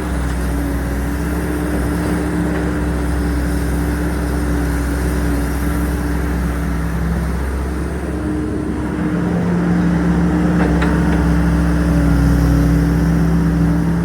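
An excavator's diesel engine running steadily; about eight seconds in, its note rises slightly and gets louder. A short clank is heard about eleven seconds in.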